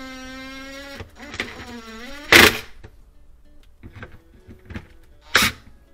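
Small electric driver motor whining at a steady pitch for about a second, then a second short run that dips and rises in pitch, as screws are driven into a plastic refrigerator evaporator cover; two sharp clacks come about two and a half seconds and five and a half seconds in.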